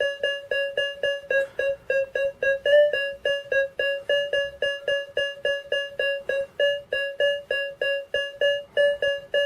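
AKA Berkut-5 metal detector sounding a train of short electronic beeps at one steady pitch, about four a second, in response to a 9-gram gold signet ring. It is a good diggable non-ferrous signal.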